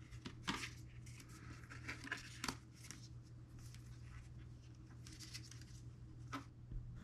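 Faint rustles and small clicks of watch packaging being handled as the smartwatch is taken out of its box, over a steady low hum.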